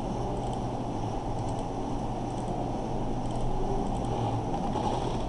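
Steady low hum and background noise of a room and microphone, with a few faint clicks.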